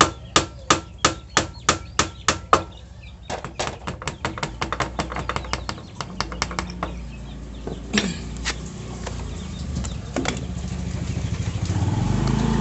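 Hammer striking the cylinder head of a Yamaha Jupiter motorcycle engine in sharp, evenly spaced blows about three a second, knocking loose a side cover. About three seconds in, the blows give way to faster, lighter clicking, then scattered knocks, and a low hum builds near the end.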